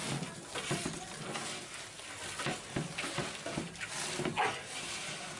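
A hand mixing raw sliced onions, garlic, bay leaves and spice powders with mustard oil in a large aluminium pot: an uneven run of rustling strokes.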